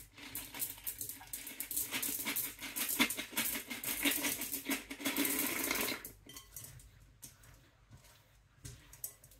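Milk chocolate pieces poured from a bag into a mixing bowl: a dense, rattling clatter for about six seconds, then a few scattered clicks.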